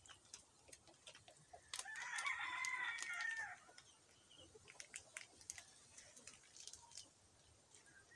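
A rooster crowing once, about two seconds in, a single call lasting about a second and a half that drops in pitch at its end. Faint scattered clicks and taps around it.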